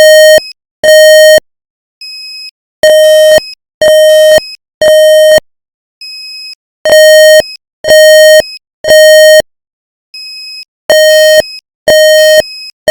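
Building fire alarm sounding the evacuation signal: loud, steady beeps of about half a second in groups of three, a new group every four seconds, with a fainter, higher beep in each pause.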